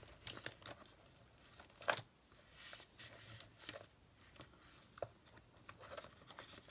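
Faint rustling and scattered light clicks of paper cards being handled and tried in a plastic document sleeve, with a sharper tap about two seconds in.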